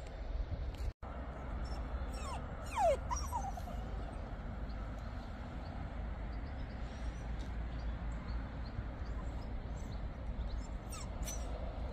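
A dog whining, a few short rising and falling whimpers about three seconds in and a fainter one near the end, over a steady low rumble.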